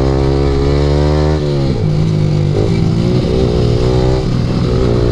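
Yamaha R15 V3's single-cylinder engine through an aftermarket Akrapovic exhaust, held at high revs and climbing slightly. About a second and a half in, the revs drop sharply as the throttle closes, then the engine runs lower and unevenly with small blips, over rushing wind.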